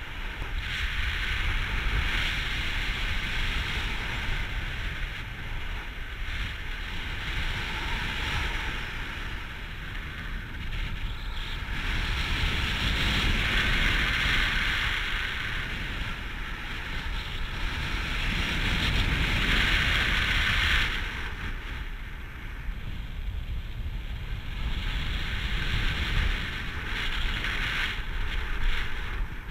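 Airflow rushing over an action camera's microphone during paraglider flight. It is a steady wind noise that swells and eases every few seconds and drops off abruptly about two-thirds of the way through.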